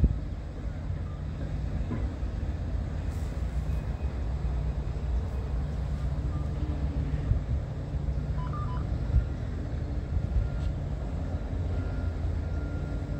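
Low steady rumble of a diesel-hauled bilevel passenger train at the platform. Two short high beeps come about two-thirds of the way through, and a faint steady tone starts near the end.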